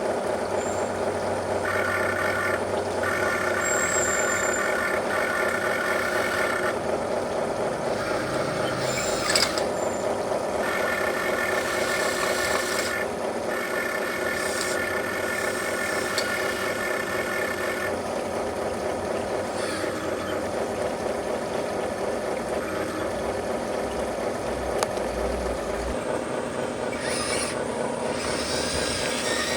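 Radio-controlled truck running: the steady whirring of its electric motor and gear train, with a higher whine that comes in for several seconds at a time and a few small clicks.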